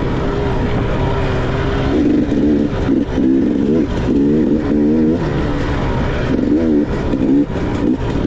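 Dirt bike engine being ridden hard, its revs rising and falling quickly and repeatedly with the throttle.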